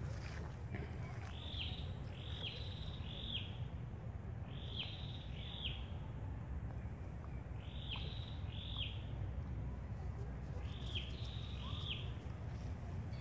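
A bird calling in short falling notes, two or three in quick succession, the groups repeating every few seconds over a steady low background hum.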